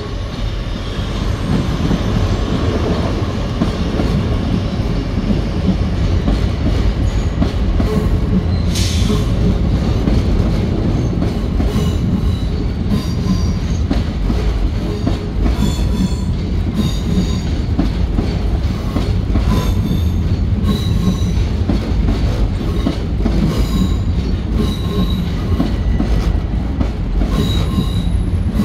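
Long Island Rail Road Bombardier M7 electric multiple-unit train pulling into the station: a loud, steady rumble of wheels on rail that builds over the first couple of seconds, with many short, high-pitched wheel squeals. There is a brief hiss about nine seconds in.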